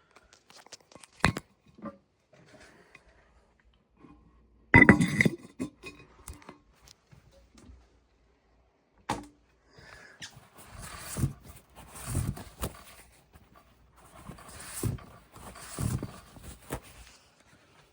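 Handling noises: a click, then a loud clattering knock about five seconds in, followed by scattered knocks, rustling and low thumps.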